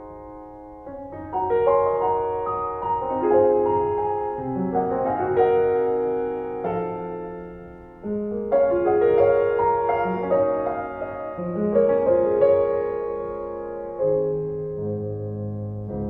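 Piano music: a melody of held notes over sustained lower notes, moving in phrases.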